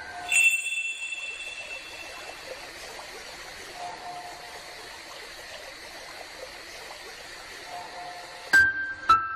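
Soundtrack sound effects: a bright ringing strike, then a steady hiss, with two more sharp ringing strikes near the end.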